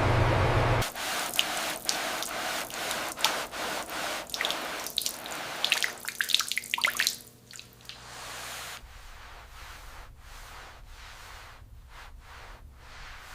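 A loud rushing spray cuts off about a second in, followed by irregular drips and splashes of water that thin out to a few faint drops after about seven seconds.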